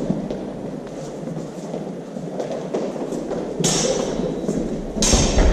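Longsword sparring bout in a large, echoing sports hall: a steady background of footwork and hall noise, with two sudden loud, sharp sounds about three and a half and five seconds in.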